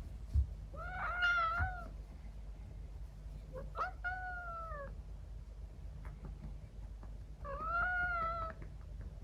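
Scottish Fold × Persian mix cat meowing three times, each meow drawn out for about a second, in response to being patted on the rump while sleepy. A soft low thump comes just before the first meow.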